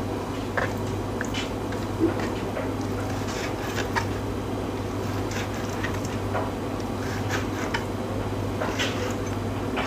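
Chef's knife slicing raw lamb tenderloin on a plastic cutting board, with irregular light taps as the blade meets the board, over a steady low hum.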